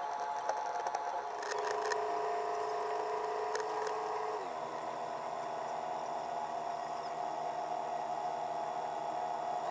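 The catamaran's engine running, sped up with the fast-motion footage so that it sounds as a high, steady whine of several tones. A few light ticks come in the first two seconds, and the whole pitch drops at a cut about four and a half seconds in.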